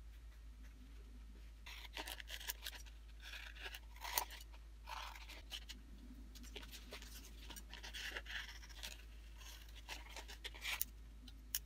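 Scissors cutting an appliqué shape out of cotton fabric backed with paper-backed fusible web (Heat & Bond). A run of short, irregular snips and crisp rustles starts about two seconds in and carries on to near the end.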